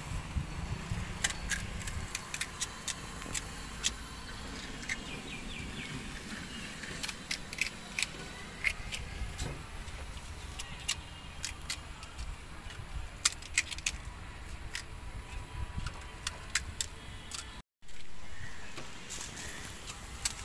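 Steel spoon clinking and scraping against a metal pot as pea filling is scooped out, in sharp irregular clinks, several a second at times, over a low steady rumble.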